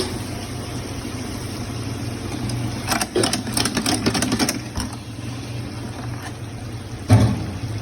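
A steady low machine hum, with a run of clattering clicks and knocks in the middle and one loud thump near the end.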